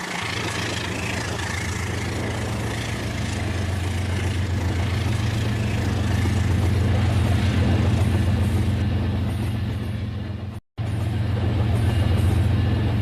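RailKing model train running on its track: a steady low hum with rumble. The sound cuts out abruptly for a split second about eleven seconds in, then carries on.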